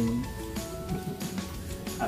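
Background music with held notes that change in pitch.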